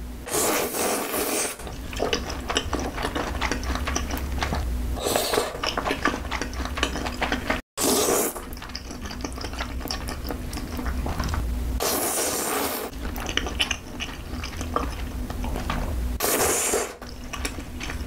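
Close-miked eating sounds of a person slurping creamy sauce-coated noodles: several long wet slurps, each about a second, with chewing and small mouth clicks between them.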